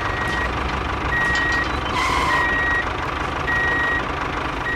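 Reversing alarm beeping, a single high steady tone about half a second long repeated roughly once a second, over the steady whir of a small toy tractor's motor and gears.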